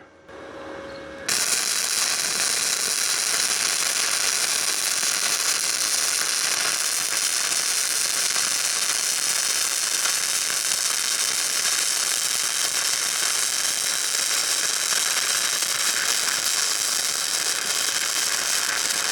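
MIG welder arc crackling steadily as a continuous bead is laid on steel, starting about a second in and running without a break.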